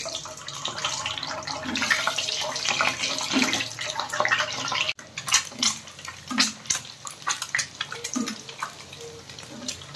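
Boiled eggs frying in hot oil, a dense sizzle that after an abrupt cut about halfway through turns into sparser sharp crackles and pops of spitting oil.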